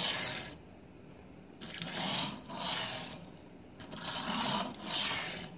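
Rubbing and scraping noises from handling: about five short strokes, one right at the start and then two pairs, about 2 and 4.5 seconds in.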